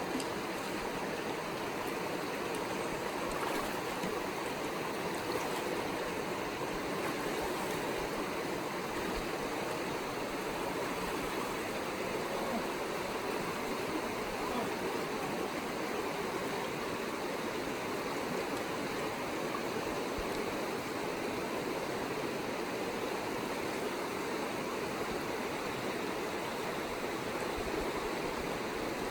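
Agnes Creek's water rushing steadily at the ford, an even, unbroken rush.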